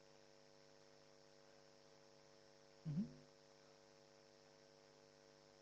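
Near silence with a steady electrical mains hum in the recording. About three seconds in there is one brief, low sound.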